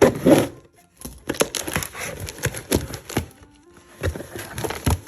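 Packaging being handled and opened: a loud rustle at the start, then a run of crinkles, sharp clicks and short scrapes.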